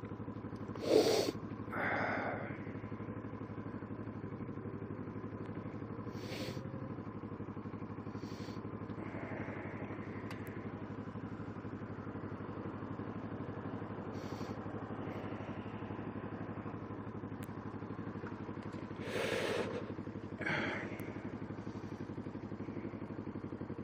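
Kawasaki Ninja 650R's parallel-twin engine running with a steady low hum. Short breathy noises come twice about a second or two in and twice more a few seconds before the end.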